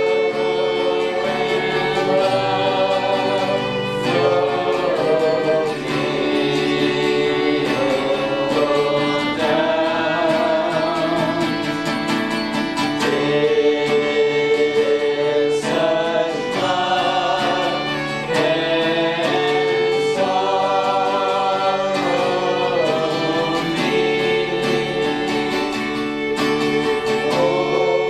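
Worship music: a group of voices singing a slow gospel-style song in held phrases a few seconds long, over guitar accompaniment.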